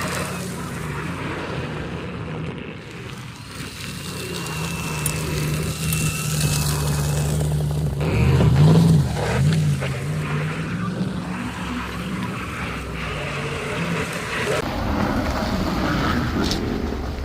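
Pickup truck engine running with a steady low drone; its pitch rises and falls briefly about eight seconds in.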